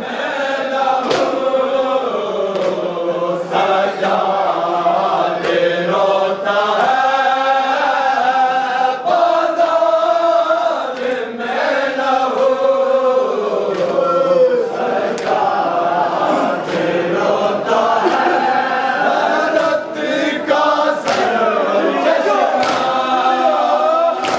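A group of men's voices chanting a noha together, with sharp, even slaps about once a second: the mourners striking their chests in unison as matam.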